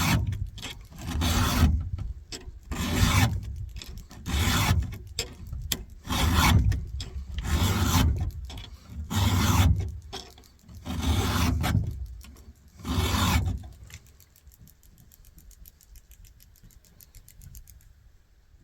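Hand file rasping across the cutter teeth of a rusty chainsaw chain during sharpening, about nine strokes, one every second and a half or so. The filing stops about two-thirds of the way through.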